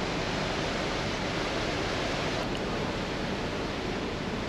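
Steady rushing noise of wind and sea on the open deck of a ferry under way.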